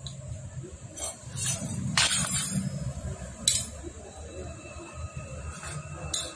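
Small metal Hero Splendor Plus engine parts clinking together as they are handled, with a run of clinks about two seconds in and a sharp single clink a little after the middle.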